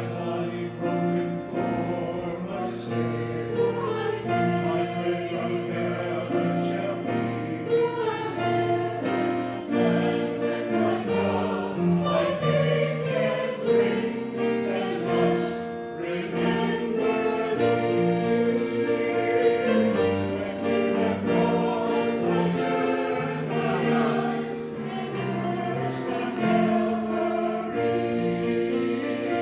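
Handbell choir ringing a slow piece in block chords, each chord held and ringing for a second or two before the next.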